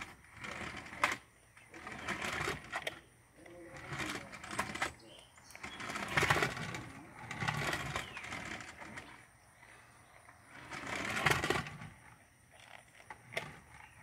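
Toy remote-control car's small electric motor and gears whirring in several short bursts as it is driven over a wooden deck.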